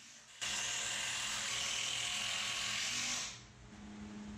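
Cordless drill driving a screw through a 2x4 frame into a 4x4 leg. Its motor runs steadily for about three seconds, starting about half a second in, then stops.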